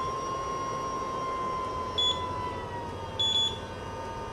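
Powered air-purifying respirator blower on a welding helmet running with a steady whine, its pitch sagging a little about three seconds in. Its alarm gives short high beeps about two seconds in and again about a second later.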